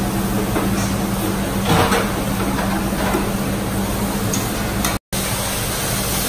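Food sizzling on a large round Mongolian-barbecue flat-top grill, with a metal spatula scraping and clacking against the steel, over a steady low hum. The sound breaks off for an instant about five seconds in.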